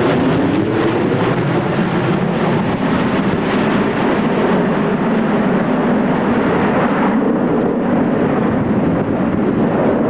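Loud jet roar of Concorde's four Rolls-Royce/Snecma Olympus 593 turbojets as it passes low on landing approach with gear down. The roar wavers and sweeps in pitch in the first couple of seconds, and its high hiss dulls about seven seconds in.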